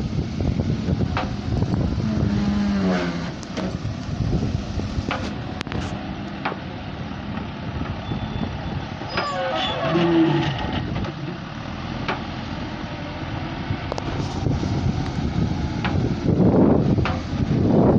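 JCB backhoe loader's diesel engine running steadily, with a few sharp knocks and a couple of brief pitched sounds over it.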